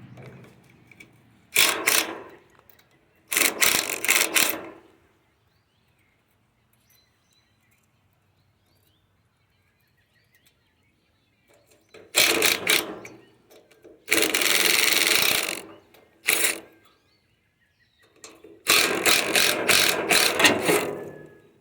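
Power driver with a 9 mm socket running in about six short bursts, backing out stubborn bolts that hold the air conditioner's fan; there is a long quiet pause in the middle.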